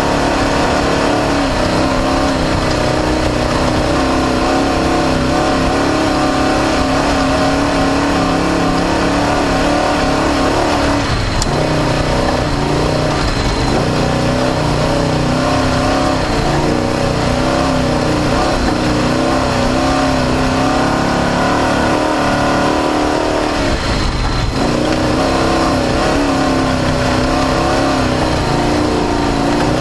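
Off-road desert race car's engine running hard at fairly steady high revs, heard onboard under a constant noisy rush. Two brief knocks come from the rough course, one about a third of the way in and one about four-fifths of the way in.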